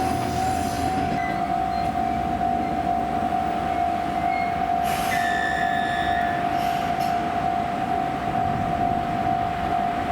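Japanese railway level-crossing alarm sounding its steady high tone while a train runs past over the rails, with a brief high wheel squeal about five seconds in.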